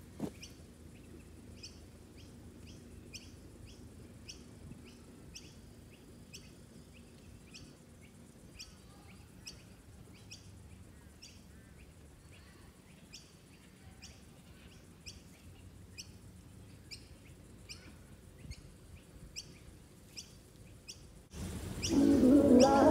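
A bird chirping over and over: short high chirps, repeated unevenly about twice a second, over a faint low background rumble. Music starts near the end.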